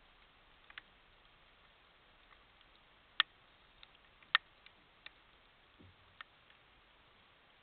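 Scattered sharp ticks at irregular intervals, the loudest two about three and four seconds in, over a steady faint hiss: raindrops striking a trail camera's housing. A brief faint low sound about six seconds in.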